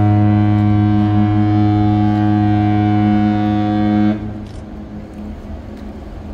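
Aircraft carrier's ship's horn sounding one long, deep, steady blast that cuts off about four seconds in, leaving wind noise on the microphone.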